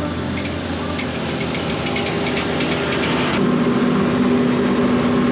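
Tractor engine running steadily while bush hogging, its hum growing a little louder about three and a half seconds in.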